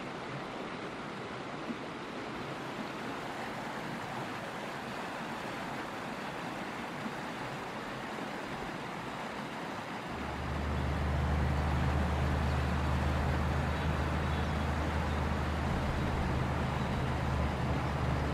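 Steady rushing of river rapids. About halfway through, a loud steady low hum joins it and runs on to the end.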